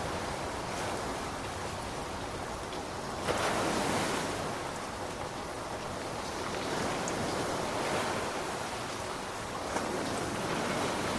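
Ocean waves washing in as a steady hiss, with a wave surging in about a third of the way through and another swelling up later.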